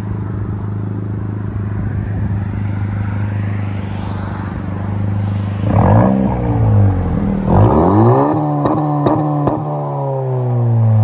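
2019 Honda Civic Si's 1.5-litre turbocharged four-cylinder idling through a muffler-delete exhaust with quad tips, then revved up twice, about six and seven and a half seconds in. After the second rev the engine speed falls slowly back toward idle, with a few sharp cracks from the exhaust on the way down.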